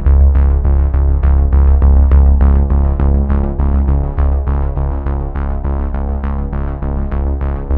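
Background electronic music: synthesizer notes repeating in a quick, even pulse over a steady low bass.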